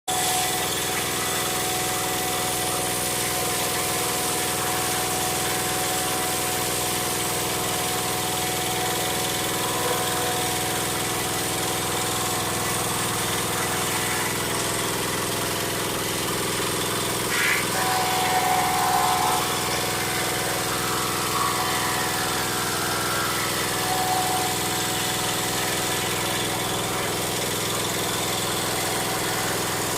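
Wood planer machine running steadily. A brief higher-pitched whine rises over it about 17 seconds in and lasts a couple of seconds.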